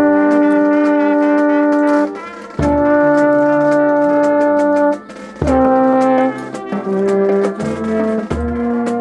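Brass band playing long sustained chords, each held about two seconds with brief breaks between them, moving into shorter changing notes in the last few seconds.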